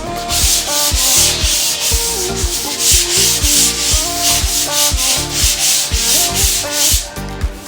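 Background music with a steady drum beat and melody, over a loud, rasping rubbing noise that pulses in rhythm and stops about seven seconds in.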